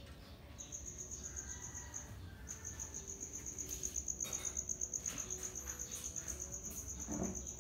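Cricket trilling: a steady, high, pulsing note that starts about half a second in, stops briefly near two seconds, then carries on, with a few faint taps under it.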